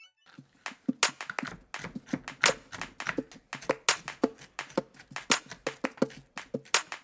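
Chef's knife chopping almonds on a wooden cutting board: quick, uneven knocks of the blade striking the board, several a second.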